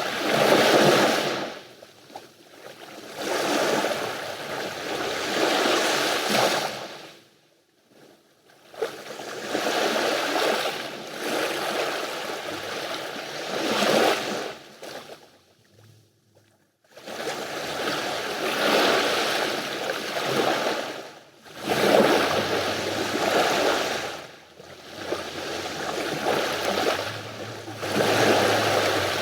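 Sea waves washing onto the shore in surges lasting a few seconds each, with two brief lulls between them.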